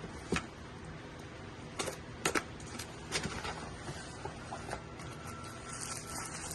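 Light clicks and taps of items and packaging being handled, irregular and scattered, over a faint steady background hum.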